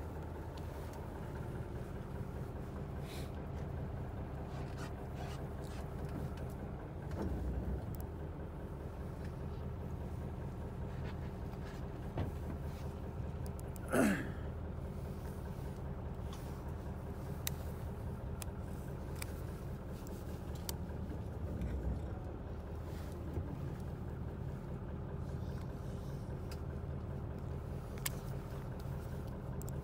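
A fishing boat's engine running with a steady low hum, with scattered light clicks. About halfway through comes one brief, loud, high sweeping squeal.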